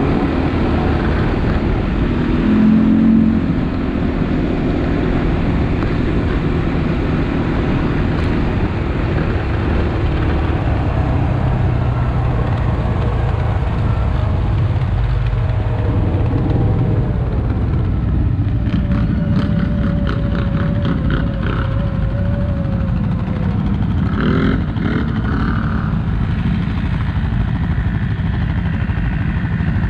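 ATV engine running under way, a steady loud rumble. A whining tone comes in past the middle and holds, with a short run of rattling clicks.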